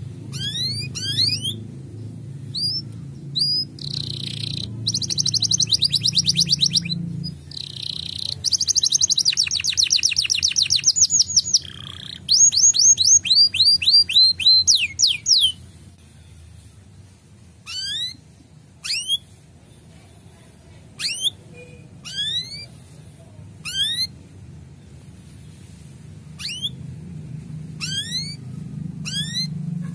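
Male domestic canary singing: fast rolling trills for the first half, then separate sharp chirps about once a second.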